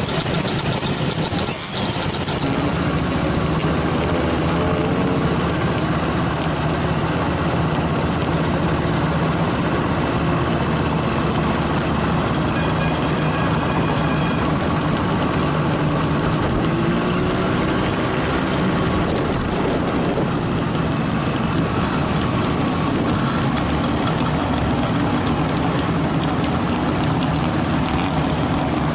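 A vehicle engine running steadily, a continuous low drone that holds its pitch.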